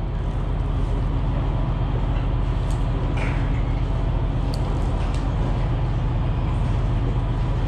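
Wind rumbling steadily on the camera microphone, with a few faint clicks.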